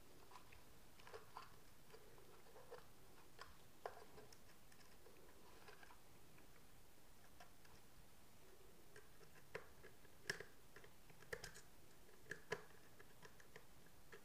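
Faint, scattered small clicks and taps of wire and a screwdriver being worked at the brass terminal screws of a plastic switch-and-socket board, with a few sharper clicks in the second half.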